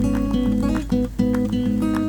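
Background music: plucked and strummed acoustic guitar over a steady bass line.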